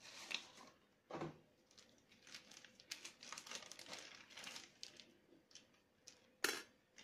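Thin plastic bag crinkling as it is handled and opened, with a soft knock about a second in and a louder knock near the end.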